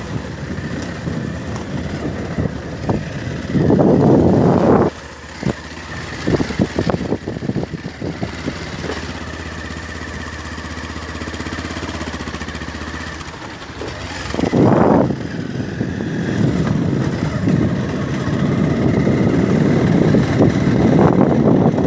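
Motorcycle engine running at low speed on a rough dirt track, a steady low hum. Louder bursts of broad noise come about four seconds in, around fifteen seconds in, and through the last few seconds.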